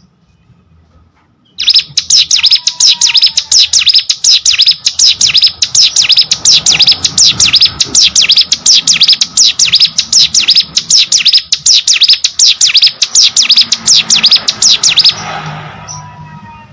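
A ciblek gunung prinia sings a loud, fast run of high, sharp chirp notes repeated evenly for about 13 seconds. The run starts a second or two in and stops abruptly near the end.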